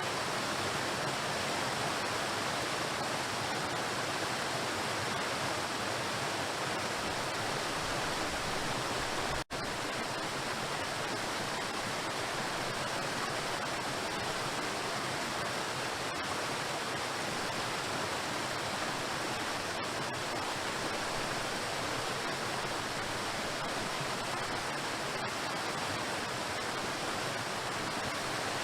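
Waterfall: water crashing onto rocks in a steady, even rush, with one momentary dropout about nine seconds in.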